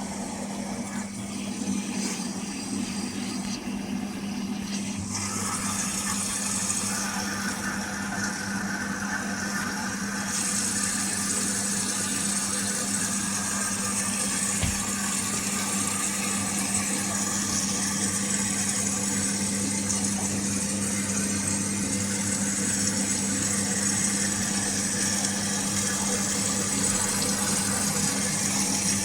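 Whirlpool FDLR70220S top-loading washing machine running after a reset: a steady hum with a rushing hiss that grows louder about five seconds in and again about ten seconds in, then holds steady.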